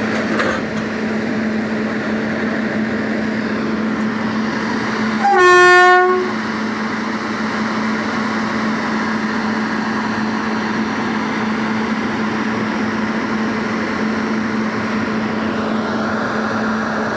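Train locomotive horn sounding once, a single blast of about a second, over the steady hum of a standing locomotive's engine.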